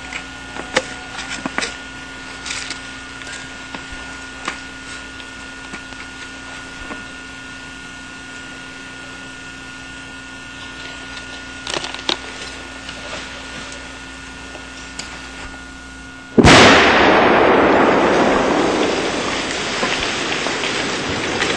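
Small dynamite blast in a bedrock trench, set off to break out fresh sulfide samples. Faint clicks of wire handling over a steady hum, then a sudden loud blast about 16 seconds in, followed by several seconds of noise that slowly fades.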